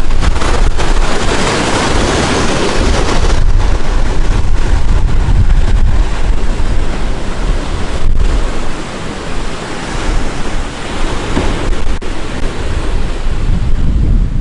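Ocean waves breaking and whitewater washing over rocks, with strong wind buffeting the microphone.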